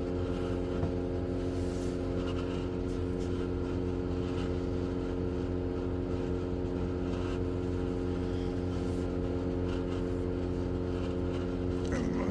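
A 12 V under-bunk air conditioner running at full power with a steady pitched hum, its compressor working hard.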